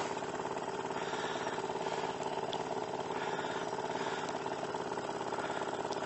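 An engine running steadily at idle, an even, unchanging hum.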